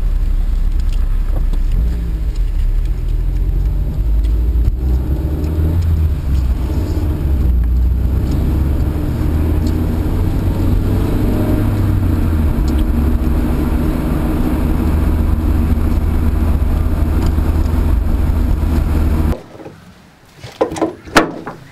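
Car engine and road noise heard from inside the cabin while driving: a steady low rumble whose engine pitch rises and falls. Near the end it cuts off suddenly, leaving a few short knocks.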